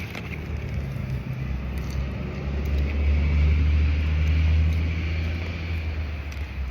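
A road vehicle passing by: a low engine rumble with tyre hiss swells to a peak about four seconds in, then fades away.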